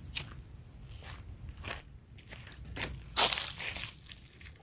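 Plants and leaves rustling and crunching as they are handled, with a few short crisp snaps and a louder rustle about three seconds in.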